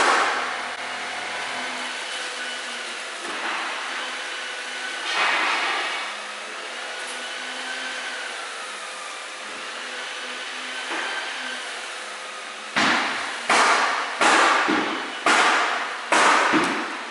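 Portable dust collector's vacuum motor running steadily, its pitch wavering slightly. Near the end, about six sharp knocks in quick succession while the dust bag is handled.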